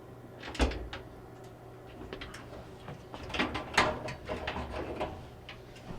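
Dryer's sheet-metal front panel being pulled off and handled: a low thump about half a second in, then a run of clicks and light knocks.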